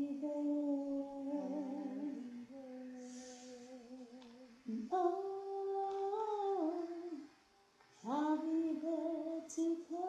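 A woman's voice humming a slow wordless melody, unaccompanied, in long held notes over three phrases, with a short pause before the last one. It is recorded close in a small room.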